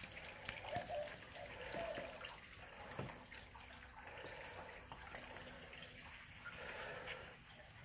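Water trickling from a disappearing fountain: it wells up through the top of a honeycombed limestone boulder and runs back down over the stone, a faint, steady trickle with small drips and gurgles.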